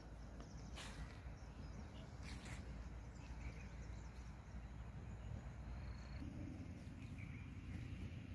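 Quiet outdoor ambience: a steady low rumble, with a few short, faint high chirps about one and two and a half seconds in.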